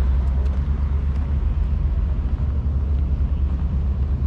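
Wind buffeting the action camera's microphone: a steady, fluttering low rumble.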